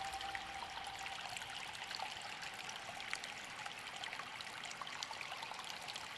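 Water trickling and running like a small stream, an even wash sprinkled with many small drips and splashes. A held music note dies away in the first half second.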